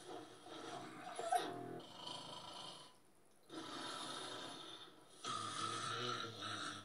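Animated film soundtrack played through a television speaker: breathy, noisy animal sound effects in several stretches, with a short pause about three seconds in.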